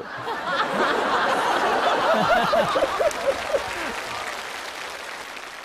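Studio audience applauding, with some laughter mixed in around the middle; the applause starts at once and dies away gradually over the last couple of seconds.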